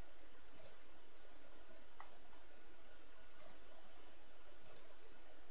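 Computer mouse clicking a handful of times, sharp single clicks and two quick double clicks, over a steady low hum.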